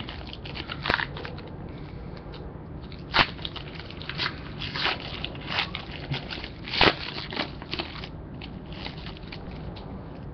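Foil trading card pack wrapper crinkling and crackling as it is torn open and handled, in irregular crackles with a couple of louder ones.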